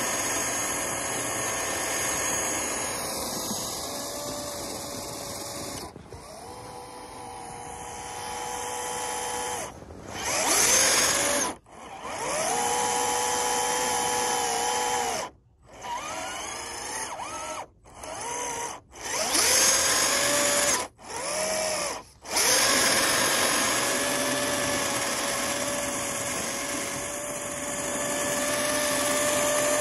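Electric motor and gear drive of a scale RC off-road truck whining under load as it ploughs through deep snow, the pitch rising and falling with the throttle. It stops and restarts several times in the middle stretch as the throttle is released and reapplied.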